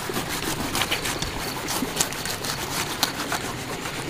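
Machete blade slicing lengthwise through the rind of a ripe jackfruit, giving a run of irregular crackling clicks as it cuts.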